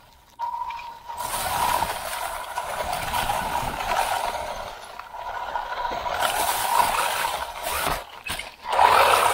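WLtoys 144001 RC buggy's electric motor and gear drivetrain whining steadily, mixed with rattling and crunching from the chassis running over rough grass and dry leaves, heard from a camera mounted on the car. The sound drops out briefly just after the start and again about eight seconds in, as the car bounces and tumbles.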